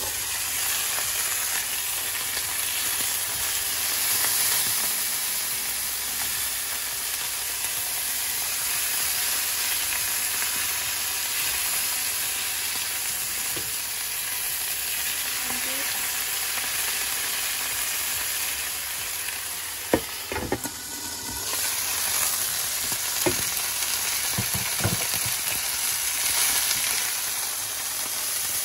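Pork chops sizzling as they fry in hot oil in a nonstick frying pan, a steady sizzle throughout. A few sharp knocks break in, the loudest about twenty seconds in and several more a few seconds later.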